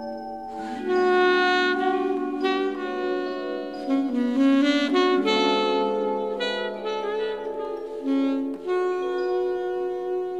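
Background music with saxophone playing a melody over sustained chords.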